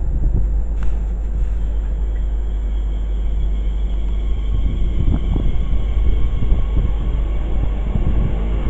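A train rumbling through a railway station, with wind buffeting the microphone. Faint steady tones come in near the end as the train sound builds.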